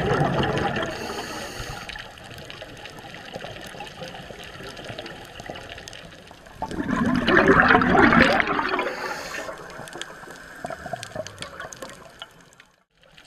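Scuba diver's exhaled bubbles rushing out of the regulator underwater: two loud rushes, one at the start and one about seven seconds in, with quieter bubbling between.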